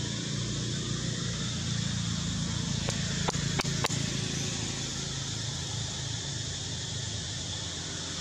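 Steady outdoor background noise, a low rumble with a hiss over it, broken by a few sharp clicks a little over three seconds in.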